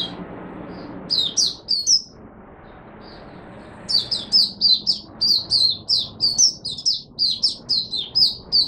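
Caged white-eye (mata puteh) singing. A short burst of high chirping notes comes about a second in, then from about four seconds a fast, continuous run of high chirps, about four a second.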